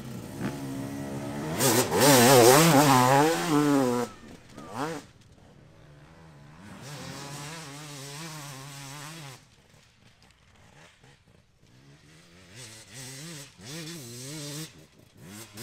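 Enduro dirt bike engine revving hard, its pitch climbing and dropping with the throttle, loudest in the first few seconds. A second, fainter spell of revving follows, then a lull, then the engine again near the end.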